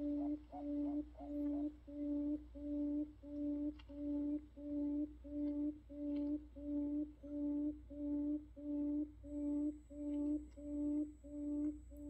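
Buttonquail (nok khum) lure call: a long, even series of low, pure hooting notes, about two a second, played as a decoy recording to draw buttonquails to a trap.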